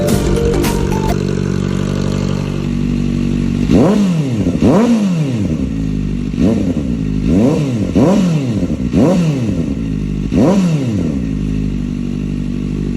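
Kawasaki ZX-4RR's 399 cc inline-four idling, then blipped about seven times in quick succession. Each rev climbs steeply and falls straight back, and the engine settles back to a steady idle near the end.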